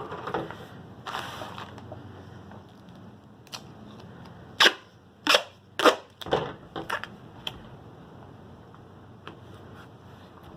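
Paper and tape being handled: faint rustling, then a quick run of about seven sharp crackling snaps a little before halfway, the first the loudest, then only a low background.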